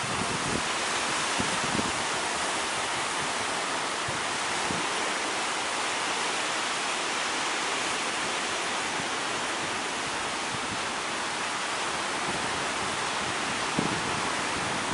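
Steady rushing roar of surf breaking at a river-mouth sandbar, with a few brief low gusts of wind buffeting the microphone near the start and near the end.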